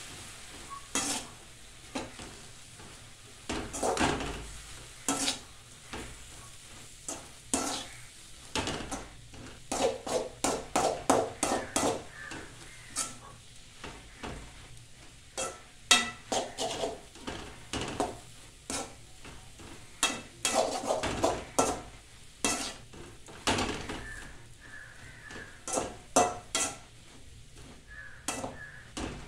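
Metal spatula scraping and knocking against a metal kadai while stir-frying moringa leaves with scrambled egg, in irregular strokes with quick flurries, over a faint sizzle.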